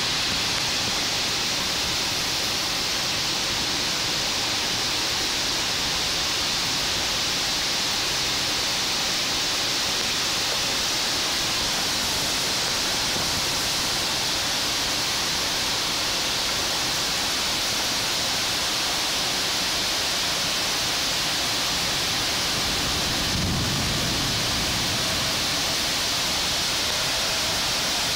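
Heavy rain pouring down in a steady, even hiss. There is a brief low rumble near the end.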